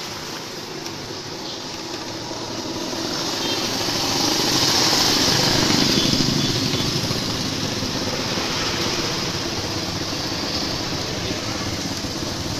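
Motorcycle engine running, growing louder to a peak about five seconds in and then easing back to a steady level.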